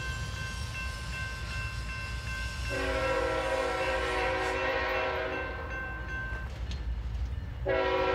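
CSX diesel locomotive's multi-chime air horn sounding for the grade crossing: one long blast starting about three seconds in and lasting nearly four seconds, then another beginning near the end, over a steady low rumble.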